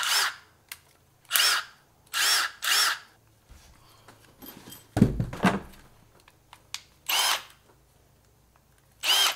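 Milwaukee cordless impact driver and drill run briefly with no load: about seven short trigger pulls, each motor whirring up and winding back down. A heavier knock comes about five seconds in.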